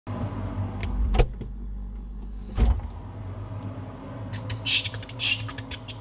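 Handling noise from a phone being set in place among fridge shelves: a low rumble with two knocks about a second and a half apart, over a steady low hum. A few short breathy hisses come near the end.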